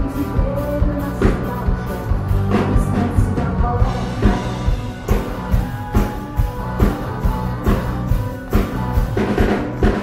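Live rock band playing, with a drum kit keeping a steady beat under bass and other instruments, and a hand-held tambourine jingling along.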